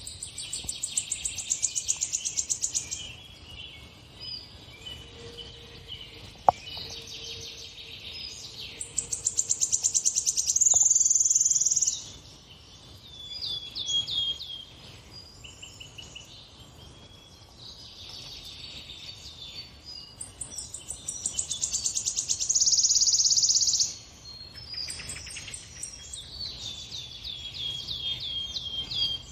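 Songbird singing from a bird video played on a television: loud, fast high trills lasting a few seconds each, recurring about every ten seconds, with shorter chirping notes between them. A single sharp click about six and a half seconds in.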